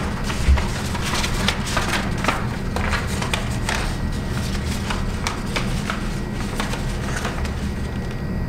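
Paper sheets rustling and crinkling as they are handled, with irregular small clicks and a brief low thump about half a second in, over a steady low hum.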